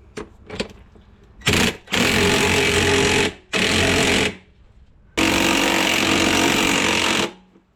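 Cordless impact gun hammering in four bursts, the longest about two seconds, as it tightens the screw of a tyre bead-breaking tool.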